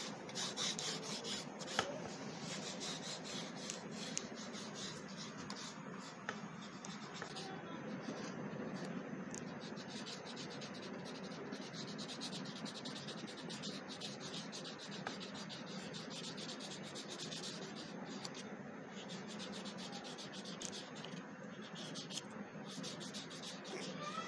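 Felt-tip highlighter marker rubbing back and forth over a wooden popsicle stick in many quick strokes.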